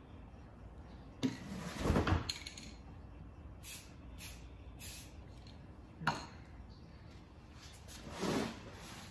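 Aerosol spray paint can hissing in three short bursts, mixed with knocks and clinks of the metal cans being handled and set down. The loudest is a clunk about a second in.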